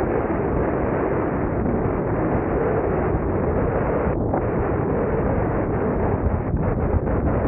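Wind buffeting the microphone of a moving car, with the car's engine and road noise underneath, as a steady heavy rumble.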